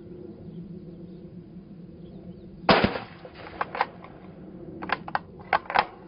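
A single precision-rifle shot with a 168-grain soft-point round, about two and a half seconds in, with a short echo. Then several shorter sharp clicks follow, in pairs.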